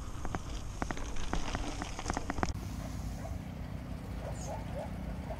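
Bicycle rattling and clicking over a bumpy dry dirt path, with a low rumble of wind and tyre noise; the rattling stops abruptly about halfway through, leaving a steady low outdoor background with a few faint chirps.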